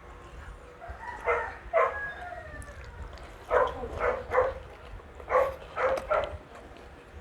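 A dog barking: about eight short barks in three bunches.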